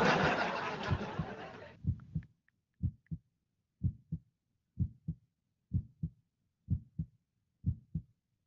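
Heartbeat sound effect: pairs of low lub-dub thumps, about one pair a second, beginning about two seconds in. Before it, a loud rushing noise fades away over the first two seconds.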